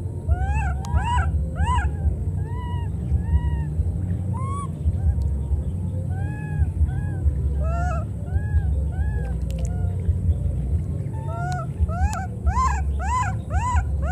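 Baby monkeys giving short, high, rising-and-falling cries, one at a time and in quick runs of three or four, over a steady low rumble.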